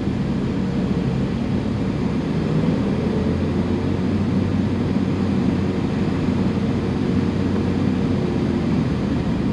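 Ferrari 458 Spider's naturally aspirated V8 running steadily at cruising speed, mixed with road noise.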